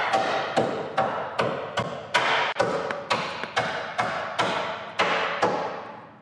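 A 12-ounce hammer tapping over and over on the steel frame of a 1972 Chevrolet Chevelle, about two or three ringing knocks a second, sounding the metal for rust rot.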